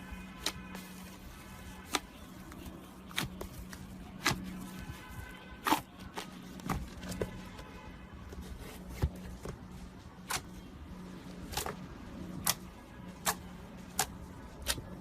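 Slime being squeezed and worked by hand, giving sharp, irregular clicking pops, roughly one a second, over a steady low hum.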